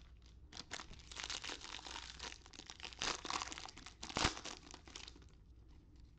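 Foil wrapper of a Topps baseball card retail pack crinkling and tearing as it is ripped open by hand, with the sharpest rip about four seconds in.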